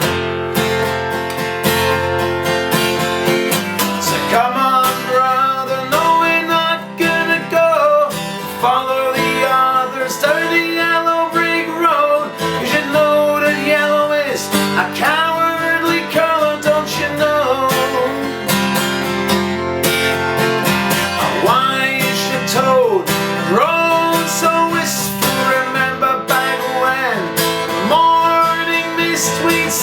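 Acoustic guitar playing an instrumental passage of a folk song, a steady run of picked and strummed notes, several of them bending or sliding in pitch.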